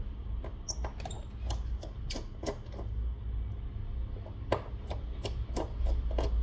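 Irregular small metallic clicks and taps of a precision screwdriver removing the tiny screws from a smartphone's internal shield, with a few brief high tinks of small metal parts.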